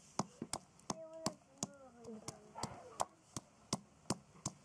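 Wooden pestle pounding ginger slices in a wooden mortar: steady, even knocks at about three a second.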